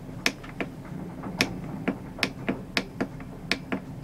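About a dozen sharp clicks at uneven spacing, from buttons being pressed on a diesel heater's LCD control panel, over a low steady hum.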